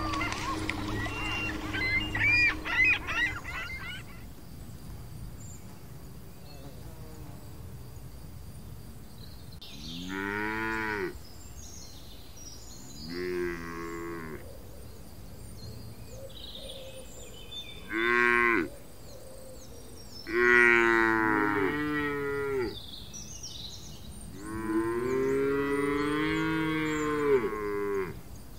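Cattle mooing: five moos spaced a few seconds apart, starting about ten seconds in, the last one the longest.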